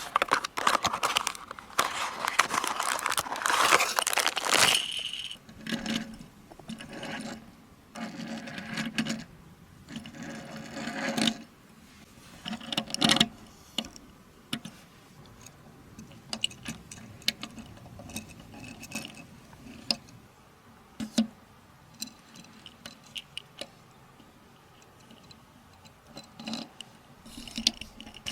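Handling of toy-car packaging and small die-cast Tomica model cars: about five seconds of dense rustling and crinkling, then scattered clicks, taps and short scrapes with pauses between them.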